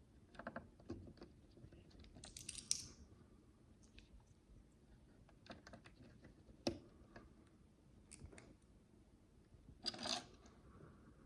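Faint, scattered clicks of tiny plastic micro building bricks being handled and pressed together. There are two short, busier bursts of rattling clicks, about two and a half seconds in and again near the end.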